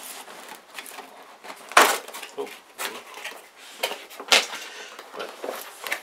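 Cardboard box being handled and opened: rustling and scraping of the cardboard flaps and packaging, with two louder knocks about two and four seconds in as the box is shifted and tipped.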